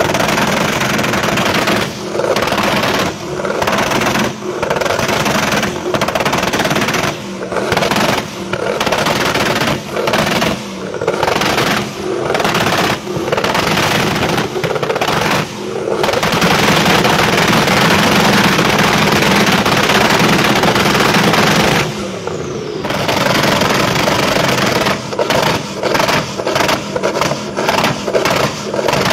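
Twin-turbo LS V8 swapped into a Toyota Land Cruiser pickup, revved hard in repeated blips, then held at high revs for several seconds before the revs fall away. Near the end come rapid popping bangs as the engine spits flames.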